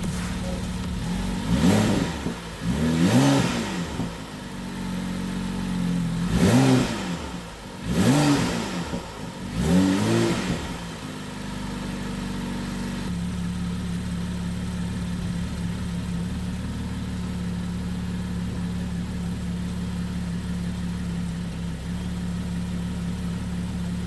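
BMW 435i's turbocharged inline-six engine revved five times in quick blips, then settling to a steady idle for the second half. It is the engine's first run since its engine oil cooler was replaced.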